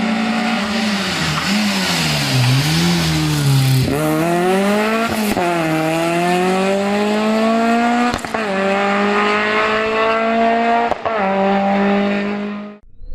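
Peugeot 306 rally car's engine at racing pace: the revs waver and dip through a bend, then it accelerates away, the pitch climbing in each gear with quick upshifts about every three seconds. The sound cuts off suddenly near the end.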